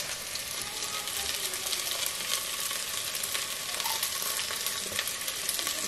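Chopped onion, whole spices and raisins frying in olive oil in a stainless steel pot: a steady sizzle full of fine crackling.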